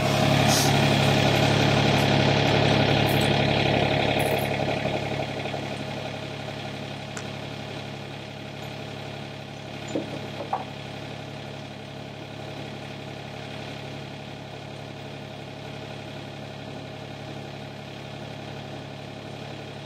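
Sany SY35U mini excavator's diesel engine idling steadily, louder for the first few seconds and then settling lower. A couple of brief knocks come about ten seconds in.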